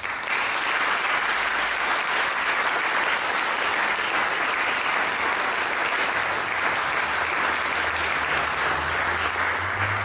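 Audience applauding, breaking out all at once and then keeping up a steady, even clapping.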